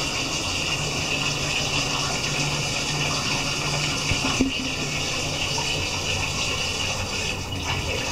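Bathroom faucet running a thin stream of water that splashes steadily into a ceramic vessel sink, with a single small tick about four seconds in.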